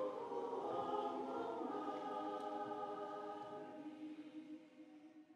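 A choir singing a held final chord of several sustained notes, which fades away over the last two seconds and ends.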